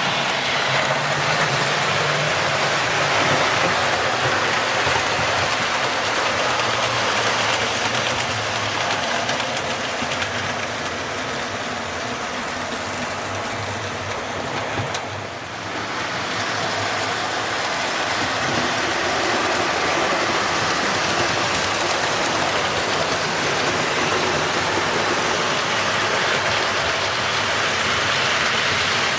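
Model railway trains running on the layout: a steady rumble of wheels on the track with the hum of the locomotives' small electric motors. The sound dips briefly about halfway through.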